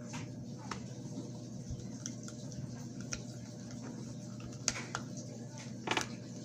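Small plastic action-figure parts being handled: scattered faint clicks and taps, the clearest just before 5 s and about 6 s in, over a steady low hum.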